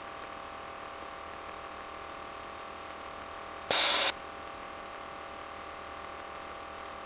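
Steady drone of a light aircraft in cruise, heard through the cockpit headset intercom as an even hum with a few steady tones. A little under four seconds in, a click and a brief rush of hiss, under half a second long, cuts in and off sharply as the intercom microphone opens and closes.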